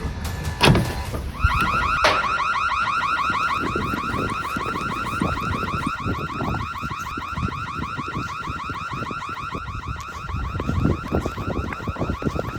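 Emergency exit door alarm going off: a loud electronic tone warbling rapidly, several pulses a second, starting about a second and a half in and sounding without a break. A sharp bang comes just before it starts.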